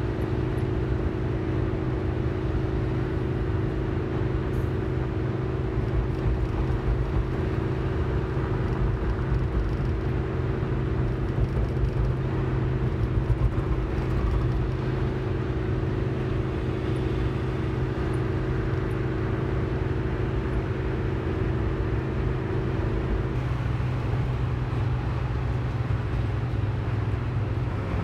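Car driving along: a steady rumble of engine and road noise, with a steady drone mixed in that stops about 23 seconds in.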